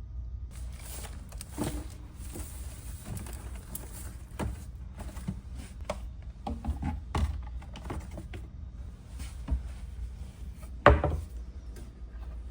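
Handling noise: scattered clicks, knocks and rustling as objects are moved and set down, with one sharp, loud knock about eleven seconds in.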